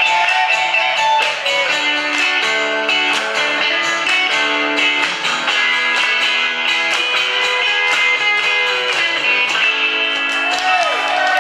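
Live band playing an instrumental guitar passage: acoustic guitar strummed in a steady rhythm alongside electric guitar, with no singing.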